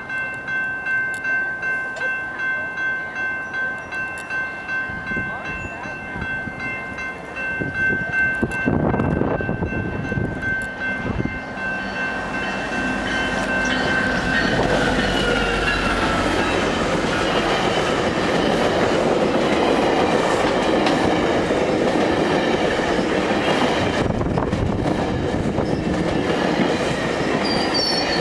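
Level-crossing warning bells ringing in a steady pulsing rhythm, then a diesel-electric locomotive's horn as a GO Transit MP40PH-led train approaches. The train passes with a rising rumble of engine and wheels over the rails, with a brief high wheel squeal near the end.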